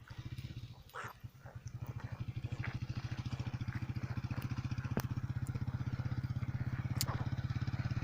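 An engine running steadily with an even, fast putter of about a dozen beats a second. A few sharp clicks sound over it.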